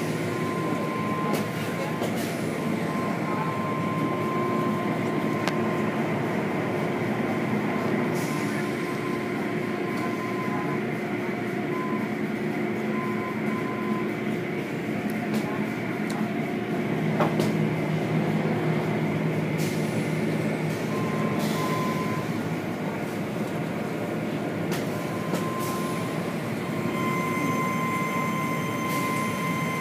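Automated tunnel car wash machinery running: a steady mechanical din of motors, pumps and spraying water as cloth curtains and brushes work over a car, with a thin whine that comes and goes.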